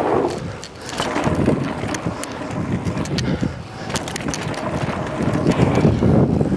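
Mountain bike rolling fast down a dirt jump trail: a constant rumble of tyre and wind noise with frequent sharp rattles and clicks from the bike.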